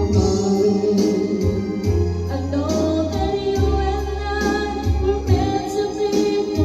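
A song playing over a sound system: singing over backing music with a steady beat.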